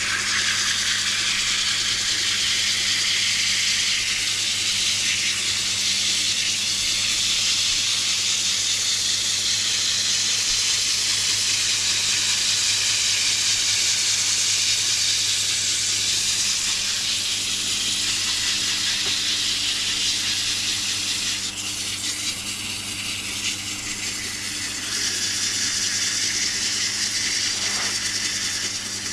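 Wood being smoothed against a tool on a running lathe: a loud, steady hiss over a low machine hum, dipping briefly a little past the middle.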